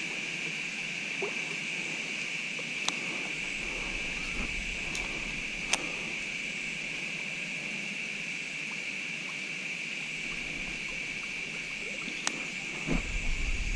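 Steady high-pitched evening chorus of calling creatures from the riverbank, with a few sharp clicks and a low rumble coming in near the end.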